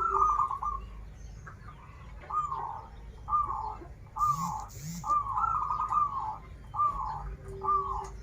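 Zebra dove cooing: a series of short cooing phrases with brief pauses between them, some opening with a quick trill. Two short hissing bursts come about halfway through.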